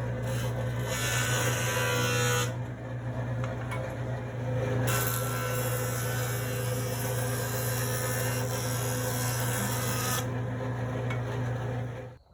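Maksiwa DE.1200 jointer running with a steady motor hum, and two stretches of louder cutting noise as wood is fed over the cutterhead, the second one longer. The sound cuts off just before the end.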